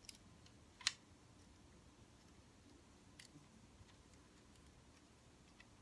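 A few light clicks of the Searzall's metal parts being handled and lined up, over near silence: one sharp click just under a second in, another a little after three seconds.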